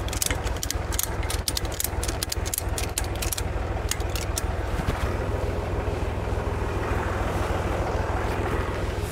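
Volvo BM320 tractor engine idling with a steady low pulsing, while sharp irregular clicks and rattles come over it for the first four seconds or so. After about five seconds the clicks stop and a steady wind-like rush joins the engine.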